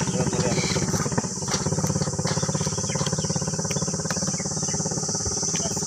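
An engine running steadily with a fast, even pulse, alongside a steady high-pitched hiss.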